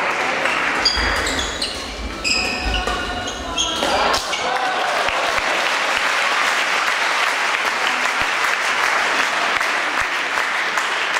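Badminton rally with shoes squeaking on the court floor and rackets hitting the shuttlecock. A little over four seconds in, the crowd breaks into applause that carries on steadily.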